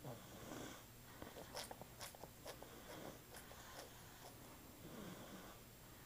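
Baby snoring faintly in sleep: one snoring breath at the start and another about five seconds in, with a run of small clicks in between.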